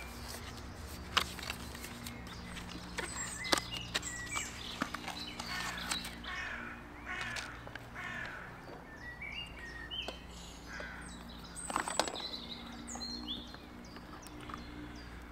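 Wild birds calling and chirping outdoors, a mix of harsher calls and short high chirps, with a few light clicks and knocks as silicone and metal baking inserts are handled.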